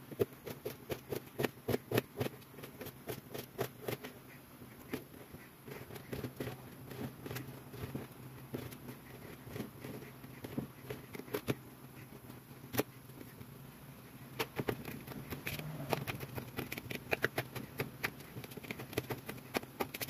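Knife chopping onion and tomato on a hard countertop: irregular sharp taps, often several a second, over a low steady hum.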